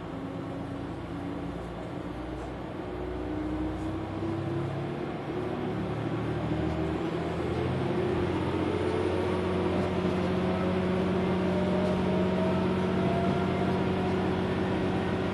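Inside a KiHa 120 diesel railcar as it gathers speed: the diesel engine pulls under load while a whine rises steadily in pitch. The sound grows louder over the first half, then settles into steady running.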